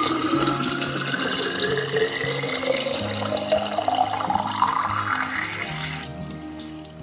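Water pouring from a glass drink dispenser's metal tap into a bottle, the pitch rising steadily as the bottle fills, until the tap is shut off about six seconds in. Background music plays underneath.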